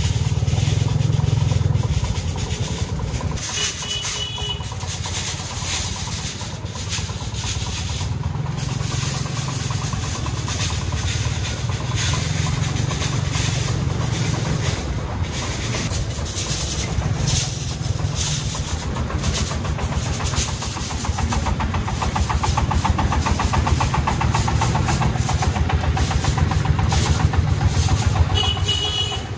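Single-cylinder diesel engine of a three-wheeled công nông farm truck chugging steadily as it drives under load, growing louder over the last several seconds as it comes close.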